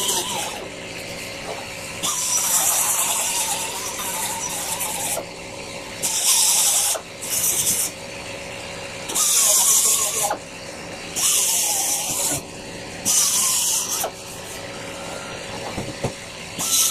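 Expanding spray foam squirted from a can into hollowed-out gaps in a vinyl glove box: several short hissing squirts, each about a second long, some with a wavering squeal as the foam sputters from the nozzle.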